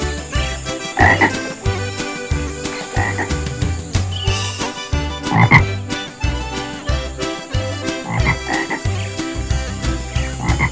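Cartoon frog croaks over a rhythmic backing of low notes and steady clicks, with five louder croaks coming every two to three seconds.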